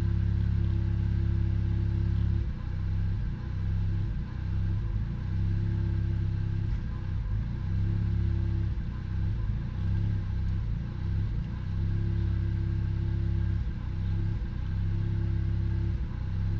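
Car engine idling: steady for the first couple of seconds, then running unevenly with repeated irregular stumbles and dips, the hiccuping or misfiring that the owner is trying to diagnose.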